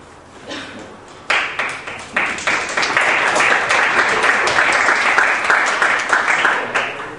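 A room full of people applauding, starting suddenly about a second in, building to a dense steady clapping and tapering off near the end.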